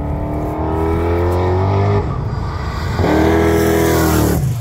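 Ford LTD's engine accelerating hard, the revs climbing for about two seconds, breaking off, then climbing again about three seconds in until it drops away near the end.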